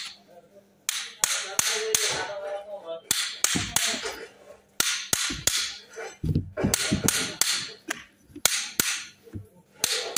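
Sharp metallic clicks and knocks from a Toyota Land Cruiser power steering gearbox being handled and turned over, metal clacking against metal and the floor. They come several a second in irregular clusters, some with a short ring.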